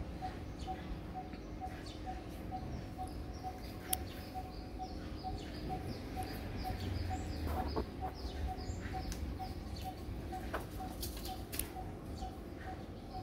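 Birds calling: one bird repeats a single low note about four times a second throughout, over quick high chirps from others. A short louder call comes about halfway through.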